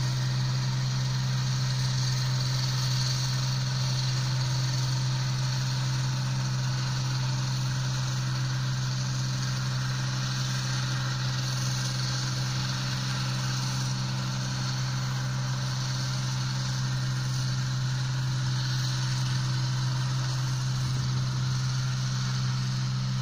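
Sperry New Holland rice combine harvester's engine running at a steady drone while it harvests, unchanging in pitch and level.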